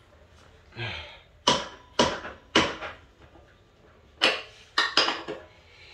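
Steel combination wrench clinking against the nut and brake-arm hardware of a mini bike's rear band brake as the nut is worked: about half a dozen sharp, unevenly spaced metallic clinks, a few ringing briefly.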